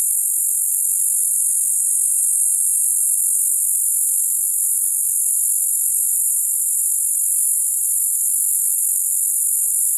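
Cicada singing: a loud, steady, high-pitched shrill buzz that keeps up without a break.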